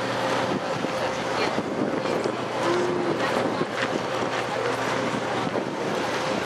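Steady outdoor background noise: wind on the microphone with a faint steady hum underneath.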